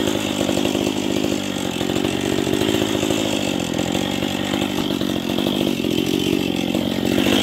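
Two-stroke chainsaw engine running steadily, its pitch dipping slightly a few times.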